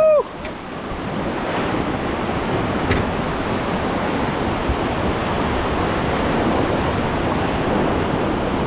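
Rushing river water around a moving raft, a steady noisy rush that builds slowly, with wind buffeting the microphone. Right at the start there is one brief, loud, high-pitched call that rises and falls.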